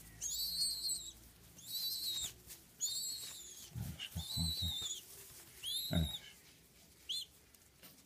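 Young pigeon (squab) giving high-pitched, whistle-like squeaking begging calls, about six short peeps with the last one clipped near the end, while it is syringe-fed. A few low bumps of handling fall between the calls.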